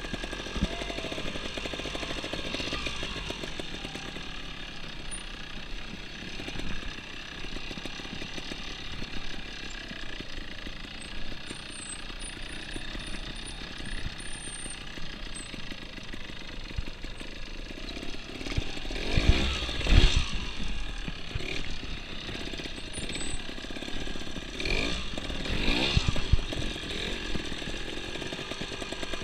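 Trials motorcycle engine putting along at low revs, blipped up twice in short rising-and-falling revs, a little past the middle and again near the end.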